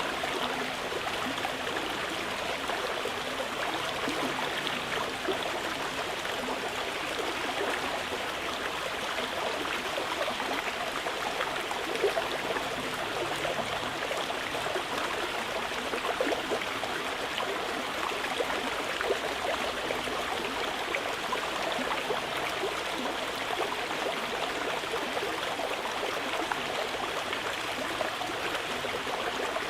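Mountain river flowing: an even, steady rush of water with no breaks.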